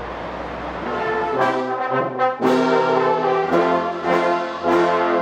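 Brass instruments playing a tune in a run of held notes, starting about a second and a half in.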